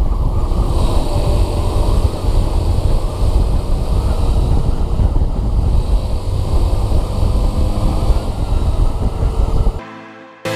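Yamaha FZS V3 motorcycle on the move, a steady engine drone buried in heavy wind rumble on the camera microphone. Near the end it cuts off suddenly and electronic piano music begins.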